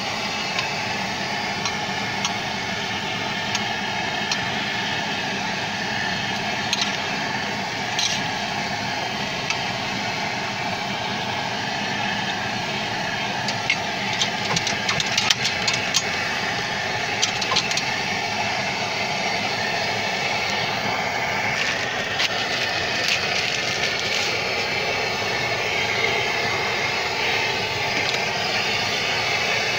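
Chicken pieces deep-frying in shallow oil on a large flat pan, a steady sizzle, with runs of sharp clicks and taps about halfway through and again a little later.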